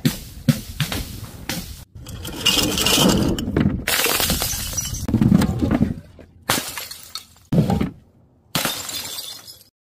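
A run of separate drops onto stone paving: paint-filled balloons bursting, then objects and a bottle smashing, each a sudden crash or crunch with breaking and scattering noise after it. The clips cut off abruptly one after another, with short silent gaps between them.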